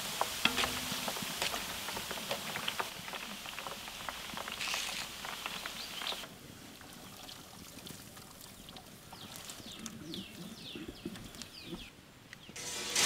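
Sev strands deep-frying in hot coconut oil, sizzling with dense crackling. About six seconds in it drops suddenly quieter, and birds chirp in the background.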